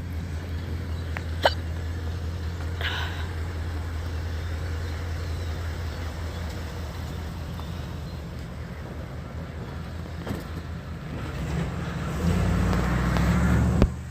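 Vehicle engine idling with a steady low hum, louder near the end, and a sharp click about a second and a half in.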